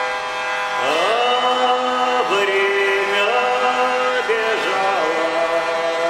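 Hurdy-gurdy playing a steady drone, joined about a second in by a man's singing voice that swoops up into the tune and then holds long notes, stepping between them.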